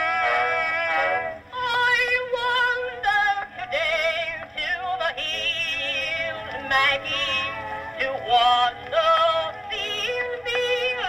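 An early recording of a singer with a strong vibrato playing back on an Edison cylinder phonograph. The sound is thin and narrow, with little bass or treble.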